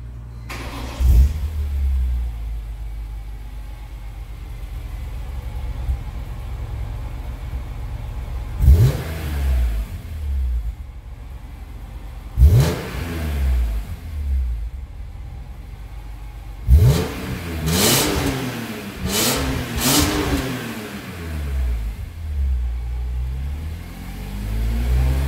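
2005 BMW E46 M3's 3.2-litre S54 straight-six on its stock exhaust, idling and free-revved. It gives three single sharp revs a few seconds apart, then a run of three or four quick blips in a row, each falling back to idle.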